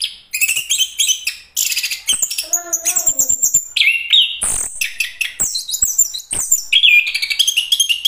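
Chestnut-capped thrush singing: a fast, varied, continuous song of high chirps, trills and gliding whistles, with a few sharp clicks in the middle.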